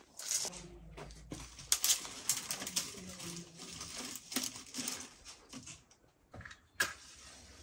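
Bundle of dry twigs rustling and snapping as it is handled and packed into a clay tandoor oven: a faint, irregular scatter of crisp clicks and crackles.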